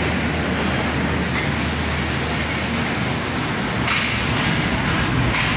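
Pakistan Railways passenger train running, heard from an open coach doorway: a steady rumble of wheels on the track, with two short bursts of hiss near the end.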